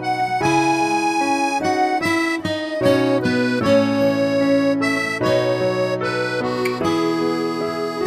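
Instrumental background music: a tune of held notes over chords that change every half second or so.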